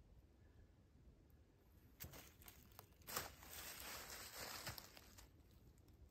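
Rubber boots stepping on dry fallen leaves, rustling and crunching, starting about two seconds in.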